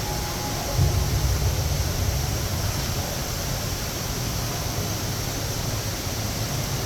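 Steady, even rushing of falling water from the Rain Vortex indoor waterfall, with a low rumble that swells about a second in.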